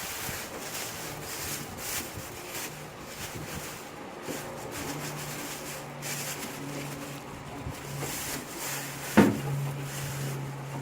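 Cardboard box and packaging scraping and rustling as a chop saw is pulled out of its box, with one sharp knock about nine seconds in.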